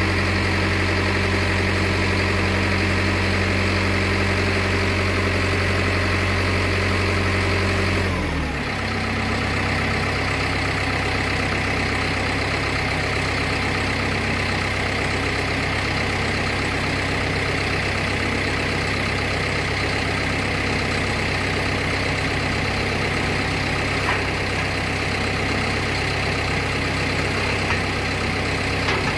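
An engine running steadily, dropping to a lower speed about eight seconds in and running on evenly after that.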